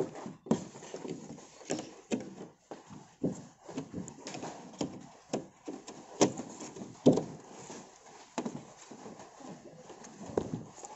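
Irregular knocks, clicks and rustles from handling a wiring harness and its plastic connector over an LCD TV's sheet-metal back chassis and inverter board.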